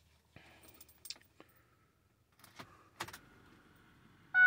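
A few faint clicks and rattles in a quiet truck cab with the engine not running, then near the end a loud, steady electronic warning chime from the Ford F350's dash sounds abruptly.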